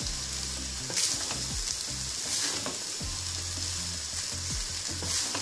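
Fried rice sizzling in a hot stainless steel pan on full flame as it dries out, stirred and turned with a wooden spatula, with a few louder swishes of the spatula through the rice.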